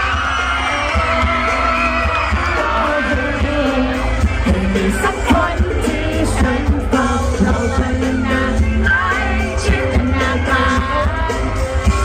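Male pop singer singing live into a handheld microphone over an amplified band with a heavy bass, with shouts from the crowd of fans.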